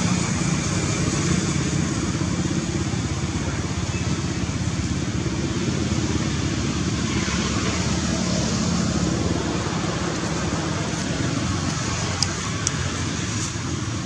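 Steady outdoor background noise, a continuous hiss over a low rumble, with a couple of faint clicks near the end.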